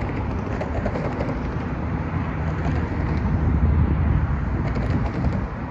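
Steady low outdoor rumble of road traffic and wind on the microphone, swelling a few seconds in.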